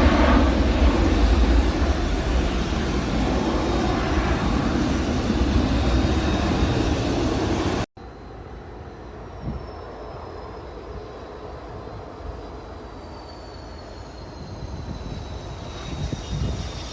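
Business jet engines running loud for about eight seconds, then an abrupt cut to a quieter jet whose high turbine whine slowly falls in pitch, growing louder again near the end.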